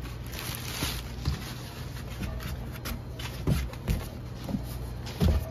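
Plastic packing material rustling and crinkling as it is pulled out of a cardboard box, with a few soft thumps of the box and its contents being handled.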